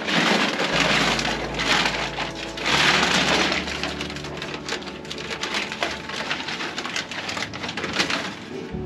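Rustling, crackling noise of sticky-backed acoustic foam lining panels being handled and pressed onto the walls, loudest in swells during the first few seconds.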